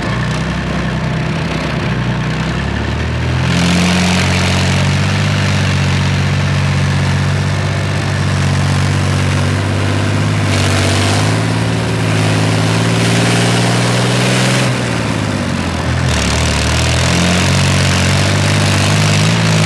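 BVP-1 infantry fighting vehicle's UTD-20 six-cylinder diesel engine running under way, heard from on top of the hull. The engine picks up about three and a half seconds in, eases off around fifteen seconds, then picks up again.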